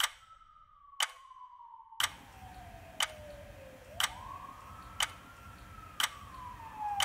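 A clock ticking once a second, each tick ringing briefly. Under it a single tone slides slowly down, rises again about four seconds in, and slides down once more, and a low background noise comes in about two seconds in.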